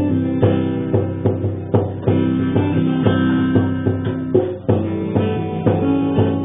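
Live acoustic music: a strummed acoustic guitar with a hand drum keeping a steady beat of about two strokes a second.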